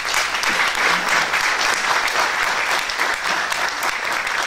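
An audience applauding: steady clapping from many hands.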